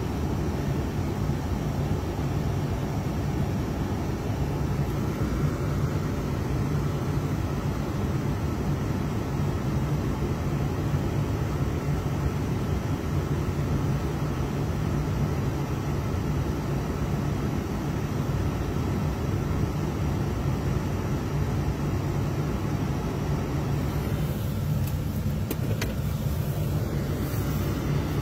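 Steady engine and road noise heard inside a vehicle's cab, a continuous low hum, with a few light crackles near the end.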